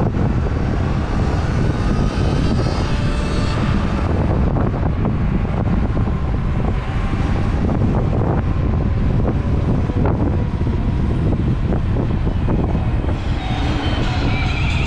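Wind rumbling and buffeting on a helmet-mounted camera microphone at riding speed on a Sur Ron Light Bee X electric dirt bike, with a faint motor whine that rises and falls.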